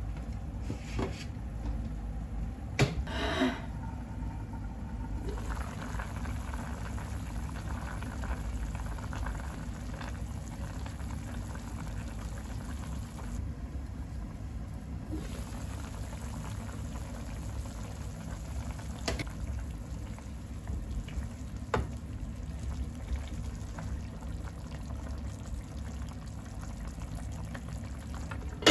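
Chicken adobo simmering under a glass lid in a frying pan: a steady low bubbling, with a few light clicks.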